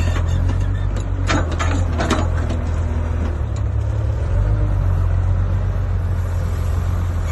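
Construction machine's diesel engine running steadily with a low drone, with a few sharp metallic clanks between about one and two seconds in.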